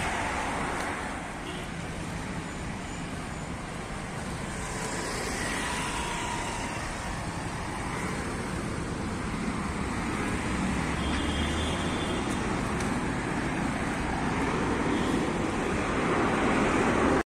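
City road traffic: cars, auto-rickshaws and motorcycles running past, a steady hum of engines and tyres that grows louder near the end.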